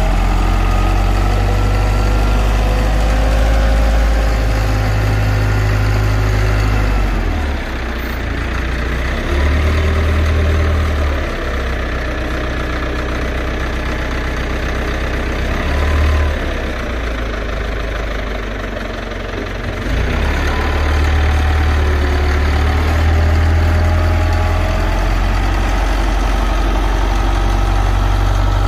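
Caterpillar 920 wheel loader's diesel engine working under load as it pushes and scoops compost, the engine note rising and falling. It eases off for several seconds past the middle, then works hard again.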